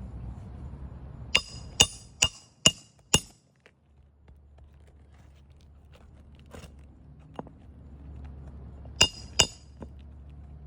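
Sharp metallic clinks from a metal tool striking metal during a shingle repair: five quick, ringing strikes about a second in, then two more near the end.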